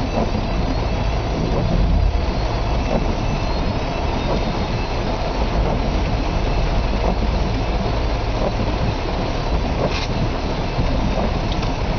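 Heavy rain pelting a car's roof and windows, heard from inside the cabin as a steady dense hiss over a low rumble.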